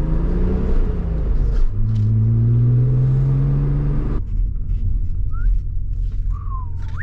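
Audi B5 S4's K04-turbocharged 2.7-litre twin-turbo V6 pulling hard under acceleration. Its pitch rises, breaks at an upshift about a second and a half in, and rises again. About four seconds in the throttle closes and the note drops to a low rumble, followed by a couple of short high chirps.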